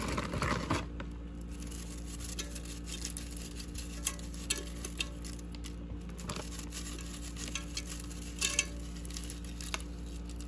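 Crisp tortilla strips crackling and pattering as they are scattered by hand onto food in a pot, a string of light irregular clicks over a steady low hum.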